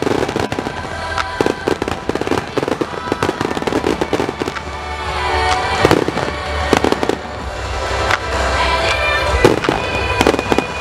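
Display fireworks going off in rapid, overlapping bangs and crackles, with music playing underneath, recorded on a camera's built-in microphone.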